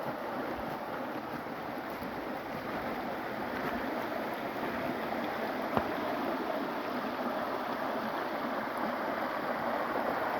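Fast-flowing forest stream rushing, a steady noise that grows slowly louder. One short knock a little over halfway through.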